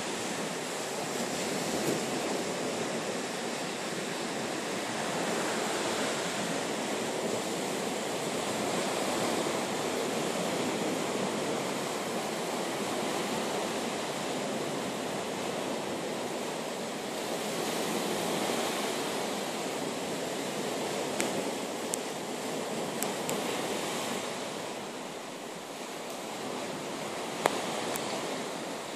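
Sea surf washing onto a sandy beach: a steady rush of noise that swells and ebbs every few seconds. A few sharp clicks come in the last third.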